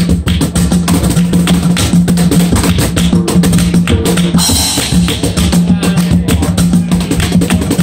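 Live acoustic guitar music with a fast, steady rhythm of hand claps.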